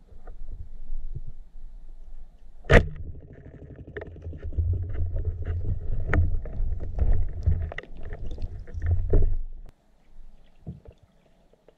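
Underwater audio from a camera on a speargun: a single sharp crack about three seconds in, the speargun firing. Several seconds of low rumbling with scattered clicks follow, then it quiets near the end.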